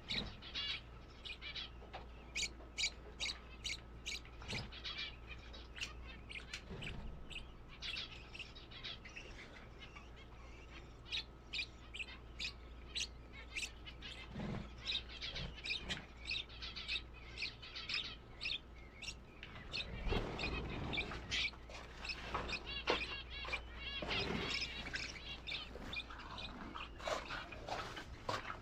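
A flock of small birds chirping, with many short high-pitched calls in quick succession that grow busier in the second half.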